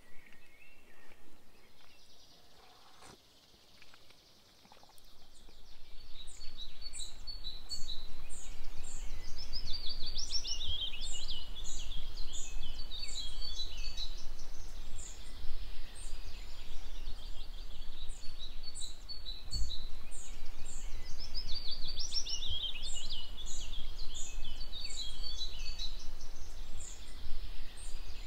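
Songbirds singing: one bird repeats a quick trilling phrase about every ten seconds over a scatter of short, high notes, with a steady low rumble underneath from about five seconds in.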